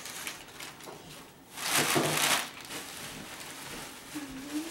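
Tissue paper rustling and crinkling as it is pulled out of a gift bag, with a louder burst of crinkling about two seconds in.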